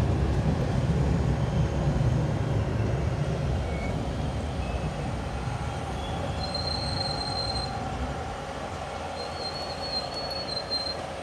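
LHB passenger coach wheels running on the rails with a steady rumble that grows gradually quieter. A thin, high wheel squeal sounds twice, once past the middle and again near the end.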